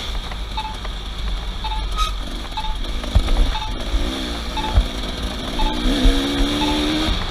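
Off-road vehicle engine running and revving, its pitch rising and falling, with a short high beep repeating about once a second and occasional knocks.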